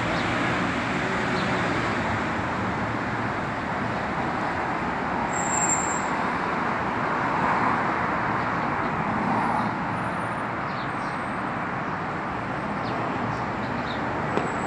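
Steady hiss of road traffic from a nearby city street, an even wash of noise without distinct events.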